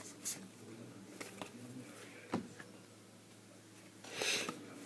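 Baseball trading cards being handled and flipped through: a few light clicks, then a brief swish of a card sliding about four seconds in.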